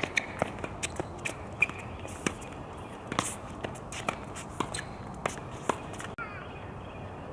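Tennis rally on a hard court: sharp pops of racket strikes and ball bounces every second or so, mixed with quick footsteps and shoe scuffs as a player runs in toward the net.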